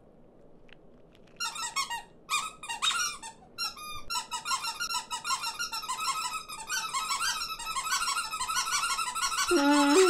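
Squeaky, high-pitched voices of animated cartoon birds. A few separate chirps start about a second and a half in, then many small birds chatter and squawk over one another, growing denser and louder. A deeper bird voice joins near the end.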